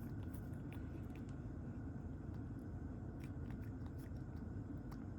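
Cat chewing its food, with scattered small crunching clicks, over a steady low hum.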